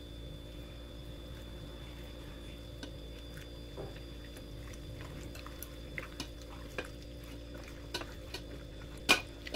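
Gloved hands rubbing marinade into raw chicken pieces in a glass bowl: faint wet squelching with light taps against the glass, growing more frequent after the middle, and one sharper knock near the end, over a steady low hum.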